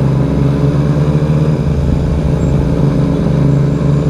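Yamaha XSR900's three-cylinder engine through a full Akrapovic twin-pipe exhaust, running at steady revs under way with a deep, bassy exhaust note.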